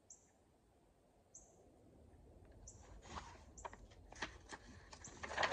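A page of a book being turned: paper rustling and soft handling clicks from about halfway, loudest near the end. Short high bird chirps sound every second or so.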